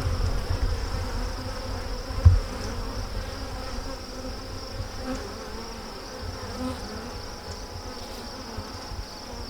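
Honeybees buzzing in a steady hum around an opened hive, over low rumbling handling noise, with one dull thump a little over two seconds in.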